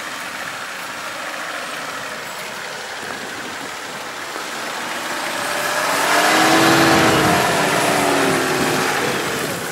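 Nissan Patrol off-roader's engine revving under load as it climbs a grassy slope, growing louder and peaking about two-thirds of the way through as it passes close by, its pitch rising and falling, then easing off near the end.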